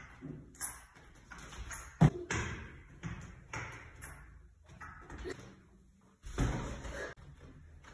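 A string of irregular thumps and knocks, the sharpest about two seconds in, with a heavier, longer thud near the end.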